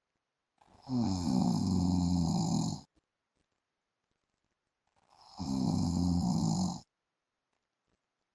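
A man snoring in his sleep: two long snores of about two seconds each, roughly four seconds apart, with silence between breaths.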